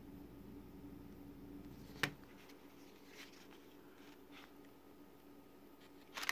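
A paper booklet being handled and its pages turned: a sharp tap about two seconds in, soft page rustles, and a few quick taps near the end.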